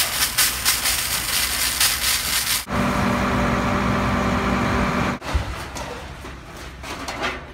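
Fire hose spraying water with a loud hiss and crackle, then, about two and a half seconds in, the steady running of a fire engine's motor and pump; from about five seconds in, a quieter hiss.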